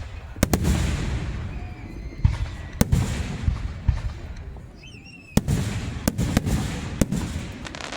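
Aerial fireworks bursting: about seven sharp bangs, some in quick pairs, each followed by a crackling hiss that lingers a second or two.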